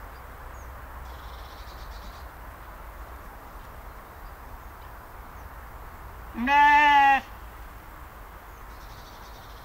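A sheep bleats once, a single loud call lasting under a second about six and a half seconds in.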